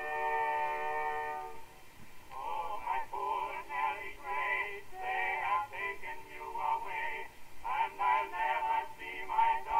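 Background music: a chord held for about the first second and a half, then a voice singing a melody over it.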